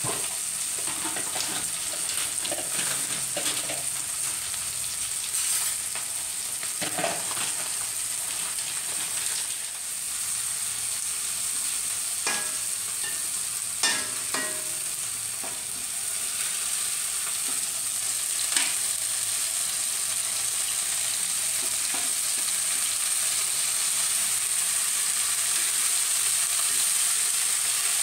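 Sliced green chillies and aromatics sizzling in hot oil in a wok, a steady frying hiss. A metal spatula stirs them, scraping and knocking against the wok now and then.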